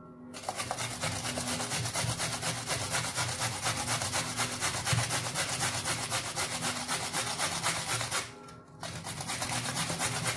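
Carrot being grated on a grater: rapid, continuous rasping strokes, with a short pause about eight seconds in before the grating starts again.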